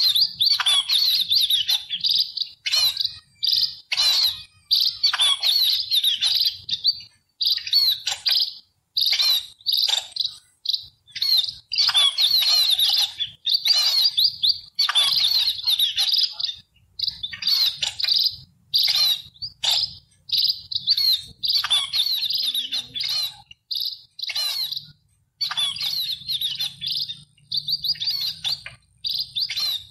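A flock of house sparrows chirping, with many short, overlapping chirps repeated almost without pause.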